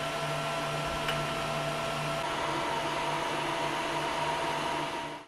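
Zonestar Z8PM4 Pro 3D printer running: a steady whir of its cooling fans, with one sharp click about a second in. About two seconds in a steady higher tone joins as the extruder motor slowly feeds filament through the hot nozzle.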